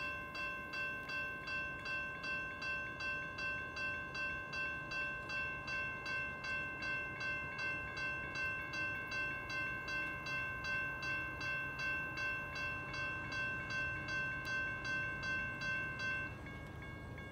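Railroad grade-crossing warning bell ringing in steady strokes, about two a second, as the crossing activates. It stops abruptly near the end, once the gate arms are fully down.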